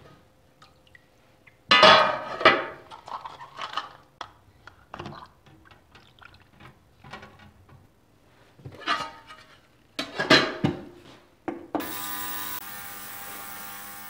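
Small metal parts clattering and clinking in several bursts, loudest about two seconds in. Near the end a digital ultrasonic cleaner starts suddenly with a steady hissing buzz over a hum.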